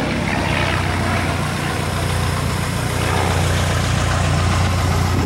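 Piston engines of two propeller aerobatic planes droning steadily in formation, a low even hum under a broad rushing noise.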